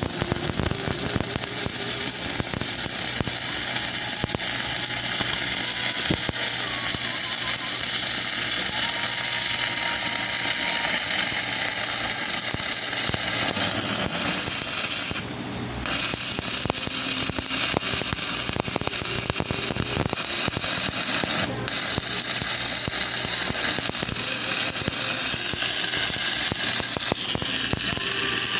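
Stick-welding arc burning a 2.6 mm electrode: a steady, dense crackling sizzle. The arc drops out briefly about halfway through and flickers once more a few seconds later. The welding machine is holding the arc under load on a serviced-machine test run.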